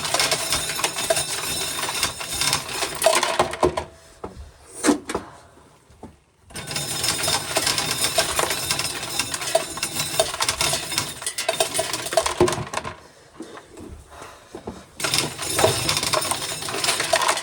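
Corn sheller at work, ears of corn being shelled with a dense clatter of kernels rattling through. It comes in three stretches, each ending in a short lull, as the ears are fed in.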